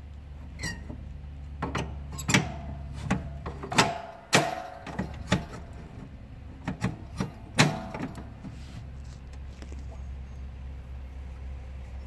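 About a dozen irregular knocks and clicks, some with a short metallic ring, over a steady low hum; the knocks stop after about eight seconds and the hum goes on.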